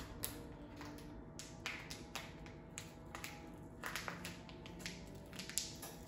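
Plastic food packaging crinkling and crackling as it is tugged and twisted by hand and resists opening: irregular sharp crackles, with a few louder snaps scattered through.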